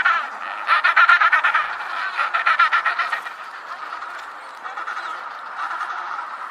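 Penguins calling with harsh, rapidly pulsed braying. Three loud bursts come in the first three seconds, followed by fainter calls.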